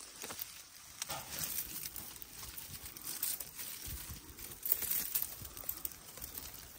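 Dry twigs and dead leaves crackling and rustling irregularly as a hand pushes through a tangle of dry vine stems.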